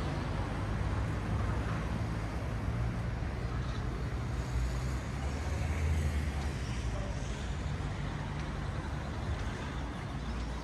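Road traffic along a seafront street: a steady low rumble of cars, with no single event standing out.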